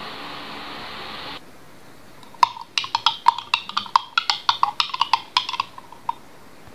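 A spoon stirring liquid in a glass jar, clinking against the glass about two dozen times in a fast, irregular run lasting some four seconds. Before it, a steady hiss cuts off suddenly.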